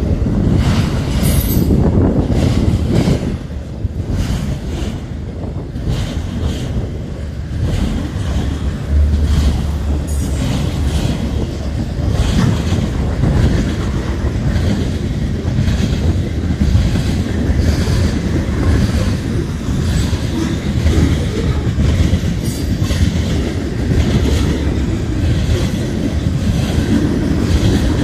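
CSX freight train rolling past, its cars' wheels rumbling and clicking steadily over the rail joints.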